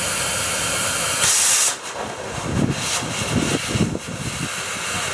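Miniature 10.25-inch-gauge steam locomotive venting steam with a loud, steady hiss. The hiss surges briefly about a second and a half in, then eases, with a few low puffs following.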